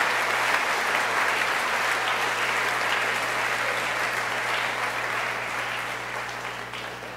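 Audience applauding steadily, dying away over the last couple of seconds.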